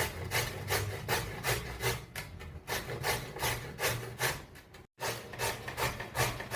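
A spoon scraping the bottom of a pot while stirring browning chicken, in quick, even back-and-forth strokes about two or three a second, with a low hum under them. The strokes break off for an instant just before the end.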